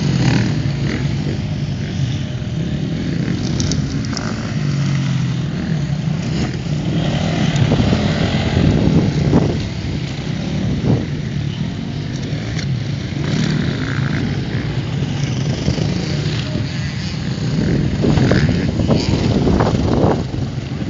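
Enduro motorcycle engines running and revving, their pitch rising and falling several times.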